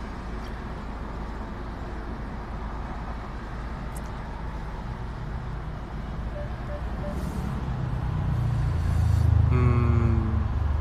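Road and traffic noise heard from inside a moving car: a steady low rumble that swells louder toward the end as a heavier vehicle passes, with a short, slightly falling whine near the end.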